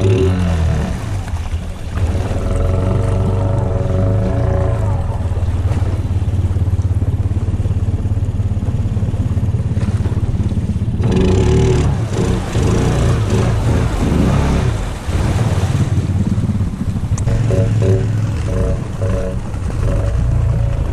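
Honda 520 ATV's single-cylinder engine running steadily as it wades through deep creek water, its note rising and falling at times. Water sloshes and splashes around the machine, louder from about halfway through.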